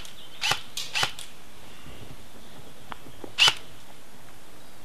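Airsoft guns firing single shots: a quick string of four or five sharp snaps in the first second or so, then one louder shot about three and a half seconds in.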